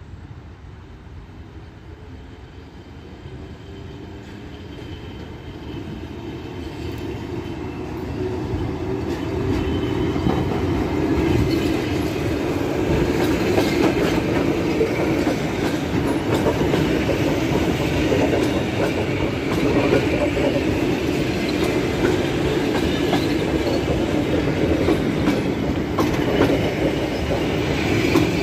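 ER2K electric train approaching and passing close by, its wheels clicking over the rail joints. The rumble grows louder over the first ten seconds, then holds steady as the carriages roll past.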